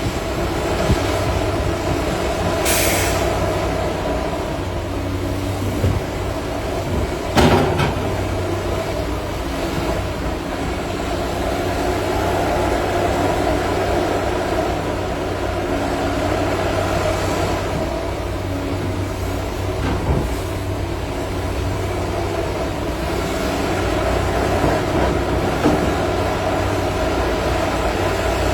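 Cat 330 hydraulic excavator's diesel engine running steadily under load while digging, with a short hiss about three seconds in and a sharp knock at about seven seconds.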